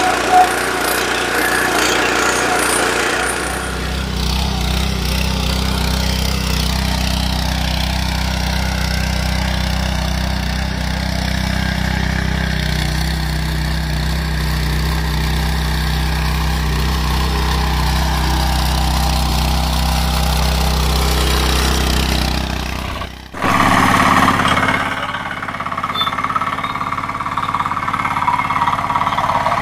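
Small engines of walk-behind power tillers running steadily under load as their rotary tines churn through soil. About 23 seconds in the sound cuts abruptly to a power tiller's engine running as the machine drives on a road.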